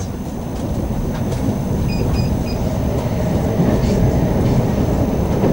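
Running noise of a PKP Intercity passenger train heard inside the carriage: a steady rumble that grows slightly louder. Three short high beeps sound about two seconds in.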